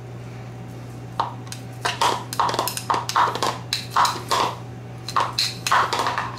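Kitchen knife scraping crushed garlic off a metal garlic press into a plastic bowl: a quick run of short scrapes and clicks, several a second, starting about a second in.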